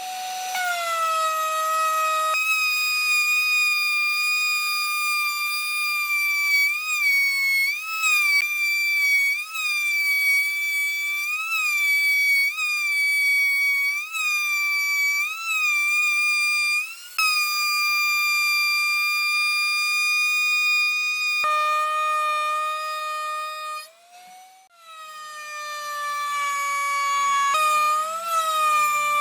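Steady high-pitched whine of a handheld electric power tool working on the wood, its pitch dipping and recovering again and again as it bears on the surface. About two thirds of the way through it settles lower, stops briefly, and spins back up.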